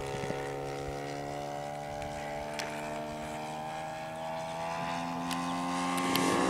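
RC model airplane engine and propeller droning steadily, its pitch sagging slightly. Near the end a second engine tone joins and the sound grows louder.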